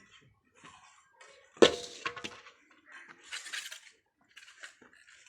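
A sharp metallic clank that rings briefly, about one and a half seconds in, among lighter clinks and scraping noises.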